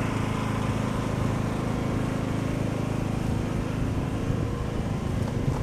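Off-road 4x4's engine running steadily at low revs.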